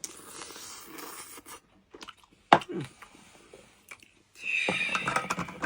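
Barnacles being eaten: chewing, with the shells crunching and clicking as the meat is picked out. There are a few sharp clicks about two seconds in and a louder stretch of eating noise near the end.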